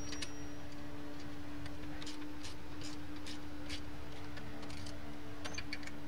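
Scattered light clicks of hand tools as the saddlebag bracket bolts go back in, one to three a second with a quick cluster near the end, over a steady hum.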